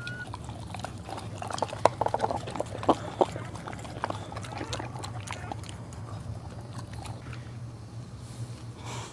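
Wet clicking and smacking from a dog, loudest and thickest about two to three seconds in, over a steady low hum.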